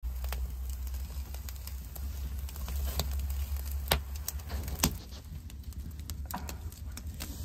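Open wood fire crackling, with irregular sharp pops and snaps, the loudest about four and five seconds in, over a steady low rumble.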